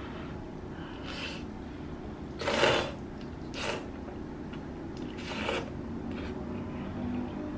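A person slurping long noodles from a bowl of spicy noodle soup, in about four short, noisy slurps, the loudest about two and a half seconds in.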